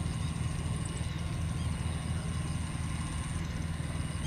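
An engine idling: a steady low drone with a fast, even throb.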